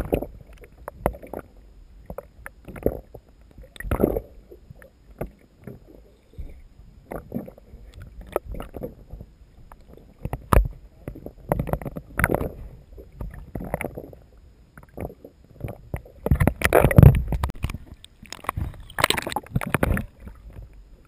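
Water sloshing and gurgling heard through a camera's microphone held underwater, muffled, with many irregular knocks and swishes as the water moves against the camera; the loudest churning comes about two-thirds through and again near the end.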